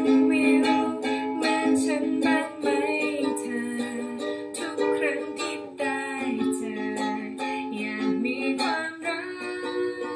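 Ukulele strummed in a steady rhythm, playing a song's bridge chord progression of A, G-sharp minor and F-sharp minor, with the chord changing about every three seconds.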